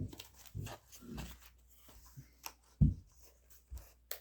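Hands handling unboxing packaging: scattered rubbing and rustling with soft knocks, the loudest a dull thump about three seconds in and a sharp click near the end.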